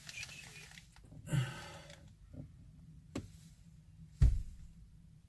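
A man sighs with a short voiced breath, then handling noises: a light click and, near the end, a dull low thump as something is set down or knocked.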